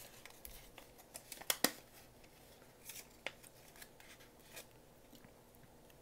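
Small paper envelope being unfolded and handled, giving faint rustling and scattered crisp clicks, the sharpest pair about a second and a half in.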